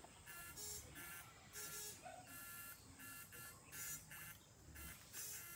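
Faint electric buzzing in short pulses, about three every two seconds, from a homemade electrofishing device shocking the water for eels.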